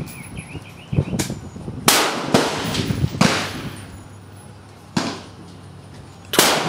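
Gunfire from other shooters on a rifle range: about six sharp shots at irregular intervals, each trailing off in a short echo, the loudest about two, three and six seconds in.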